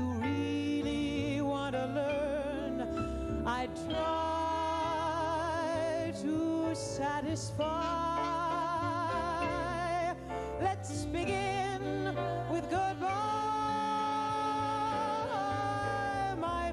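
A woman singing a slow blues song into a microphone, holding long notes with a wide vibrato, over a small band with piano and double bass.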